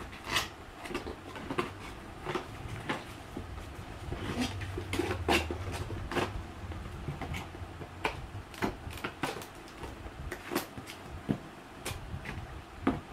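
Cardboard packaging and plastic hand-blender attachments being handled: irregular knocks, taps and rustles of the box flaps and parts being moved. A low rumble runs underneath, strongest a few seconds in.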